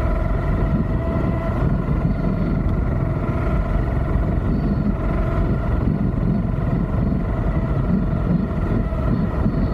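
Scooter riding along: wind buffeting the microphone, with a steady whine from the scooter's drive.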